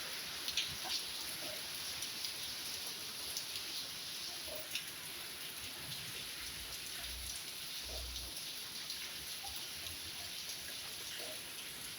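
Steady monsoon rain falling, with scattered drops ticking sharply close by.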